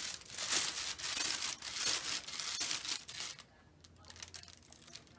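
A cat pawing and scraping at a crumpled paper food mat around its plate, making repeated crinkling and rustling for about three seconds before it quiets. The sound comes from caching: the cat is trying to cover its leftover food after eating.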